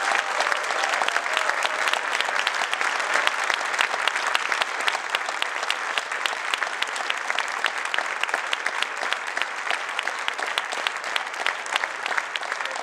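A hall crowd of several hundred people applauding steadily, with a shout or two of cheering near the start.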